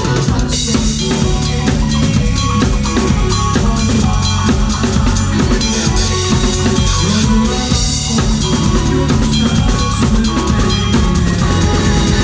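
Live band playing a song, with a drum kit up front: a steady beat of bass drum, snare and cymbals over sustained pitched tones from the other instruments.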